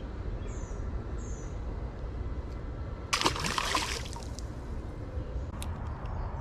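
A brief splash of water about three seconds in, lasting under a second, like a small fish dropped or slipping back into the water.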